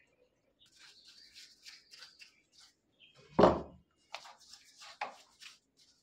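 A small brush scrubbing dust and grime from a scooter's CVT housing in quick scratchy strokes, with one louder knock about three and a half seconds in.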